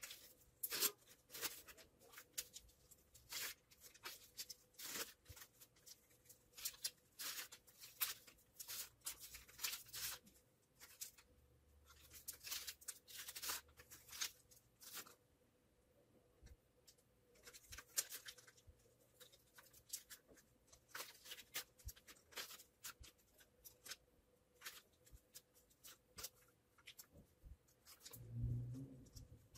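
Strip of kraft paper crinkling and rustling in the hands as it is wound around a copper wire coil, in faint, irregular crackles, over a faint steady hum.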